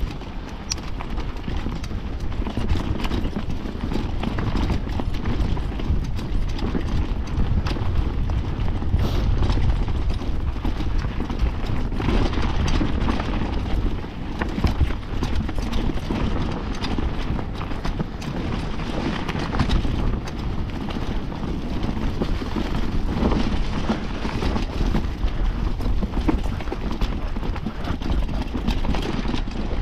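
Mountain bike ridden fast over a rooty dirt trail: continuous clatter and rattle of the bike over roots and bumps, with tyre noise and wind rumble on the action-camera microphone.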